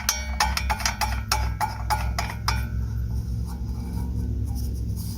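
Metal parts of a small propane heater clinking and clicking as the gas adapter is handled and screwed onto the heater, with a quick run of sharp clinks in the first half and fewer after, over a steady low hum.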